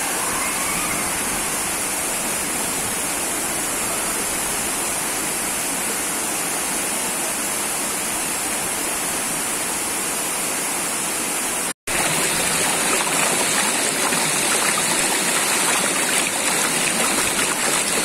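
Steady rushing of a waterfall, an even roar of falling water. About two-thirds of the way through the sound cuts out for an instant and comes back slightly louder and rougher: water rushing over rocks in a stream's rapids.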